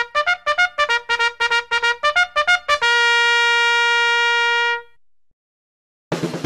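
Intro music: a brass-sounding melody of quick short notes, then one long held note that fades out about five seconds in. After a second of silence, drum-heavy music starts near the end.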